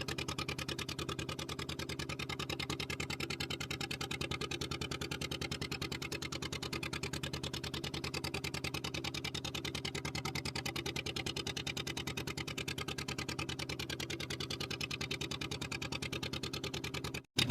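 Fishing boat's engine running steadily at an even, pulsing beat. It cuts out for a moment just before the end.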